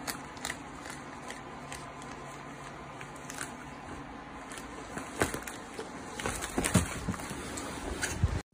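Irregular crinkling and crackling of a plastic snack bag stuck over a cat's head as the cat moves, over a steady hiss, loudest about five to seven seconds in.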